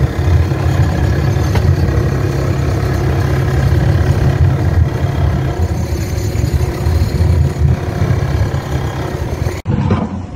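Fishing boat's engine running steadily while under way, a strong low hum over a steady rush of water and wind. It breaks off abruptly near the end.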